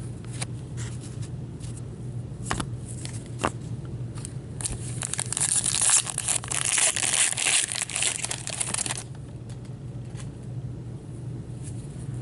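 A foil trading-card pack being torn open and crinkled in gloved hands. The loud crackling starts about four and a half seconds in and stops abruptly around nine seconds. Before it come light clicks and slides of cards being handled, all over a low steady hum.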